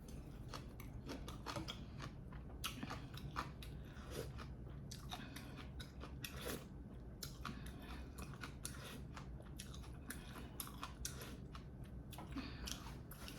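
A person chewing and biting food close to the microphone: a steady run of small irregular mouth clicks and crunches.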